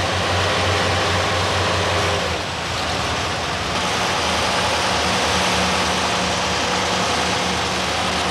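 Diesel engine of a heavy hydraulic platform trailer running steadily. About two and a half seconds in, its note shifts to a different pitch.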